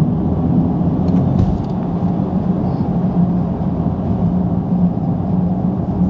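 Cabin sound of a Mercedes-AMG EQE 43 electric car at about 100 km/h: a steady low electronic hum from its synthetic drive sound over road and tyre rumble. The sound eases slightly as power is cut and the car switches to regenerative braking.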